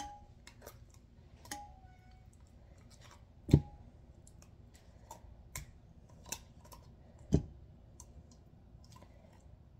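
A metal spoon scooping pumpkin puree out of a can into a stainless steel bowl: scattered light clicks and scrapes of metal on metal. Two louder knocks come about three and a half and seven and a half seconds in.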